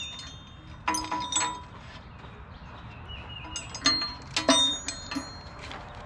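Metal hand tools tethered on steel cables to a bike repair station's steel post, clinking and jangling as they are handled: sharp metallic clinks with a short ring, a cluster about a second in and several more between four and five seconds in.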